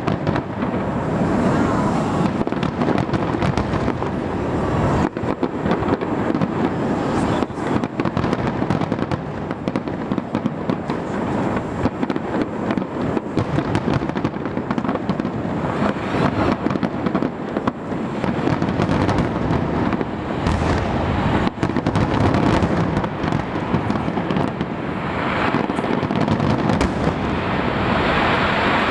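Fireworks display: aerial shells bursting in quick succession, a near-continuous stream of bangs and crackle.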